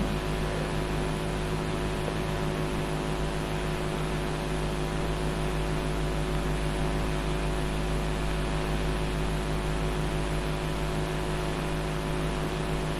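Steady electrical hum of several fixed tones over an even hiss, unchanging throughout, with no tool or handling sounds.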